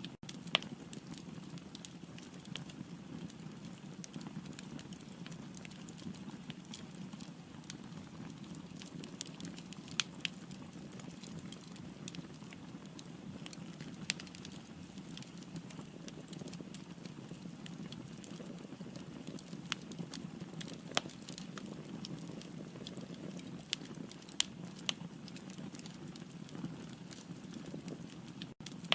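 Firewood burning in a fireplace: a steady low rumble of flames with scattered sharp pops and crackles from the wood, a few of them standing out clearly.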